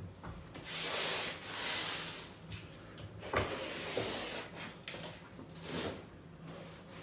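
Irregular rubbing and scraping noises with a couple of sharp knocks a few seconds in, the sounds of materials being handled and worked on over a faint steady hum.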